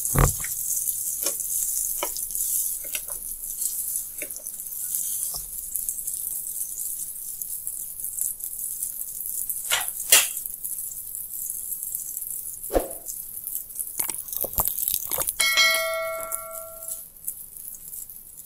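Dhuska batter fritters deep-frying in hot oil in a pan: a steady high sizzle with scattered clicks and pops. About fifteen seconds in, a short bell chime from a subscribe-button animation rings for about a second and a half.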